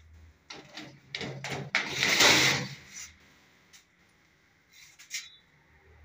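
Sheet-metal tray of a wire bird cage being handled: a few sharp metallic clicks and clanks, then a louder scraping slide about two seconds in, like a drawer, and a few more clicks near the end.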